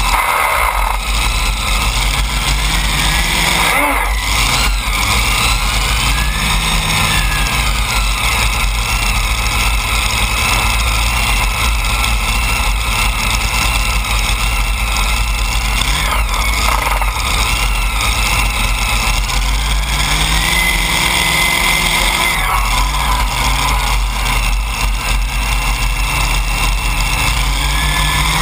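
The twin Hemi V8 engines of a modified pulling tractor idle steadily, with a few short rises and falls in revs as the throttle is blipped.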